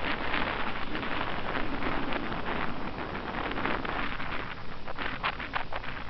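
Wind rushing over the microphone together with choppy lake waves splashing and lapping, with irregular splashy crackles that come thicker near the end.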